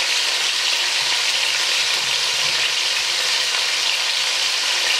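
Pieces of oxtail sizzling steadily as they brown in a hot stainless steel pot.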